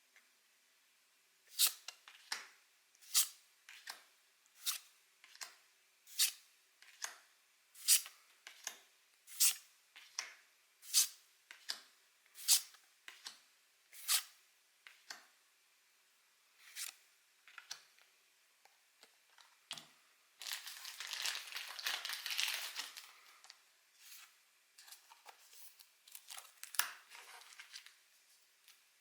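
Pokémon trading cards being flicked one by one through a freshly opened booster pack, a crisp snap about every three-quarters of a second for some fifteen seconds. About twenty seconds in, a foil booster-pack wrapper crinkles and tears for about three seconds, followed by a few scattered card clicks.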